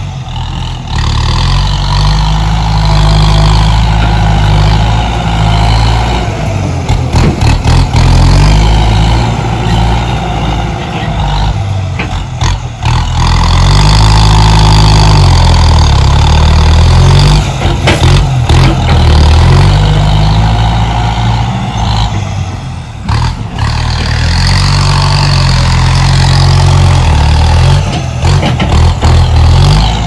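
Diesel engine of a small bulldozer working under load as it pushes dirt, its pitch rising and falling again and again as it revs up and eases off, with short clanks here and there.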